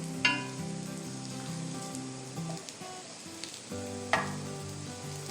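Alu vadi (gram-flour-coated colocasia leaf slices) shallow-frying in a little oil in a nonstick pan, sizzling steadily. Two sharp clinks of a spatula against the pan ring out, one just after the start and one about four seconds in.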